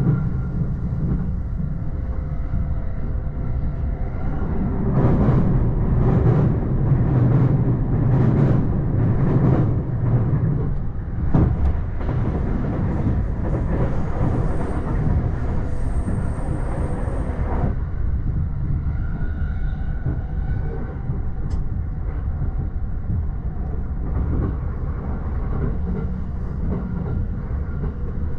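JR East E231 series electric train running at speed, heard inside its bilevel Green car: a steady rumble of wheels on rail. It gets louder between about five and eleven seconds in, with sharp knocks.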